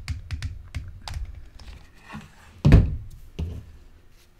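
A hot glue gun being handled and used on a craft table: a quick run of clicks in the first second or so, then a loud thunk about two-thirds of the way in, followed by a softer knock.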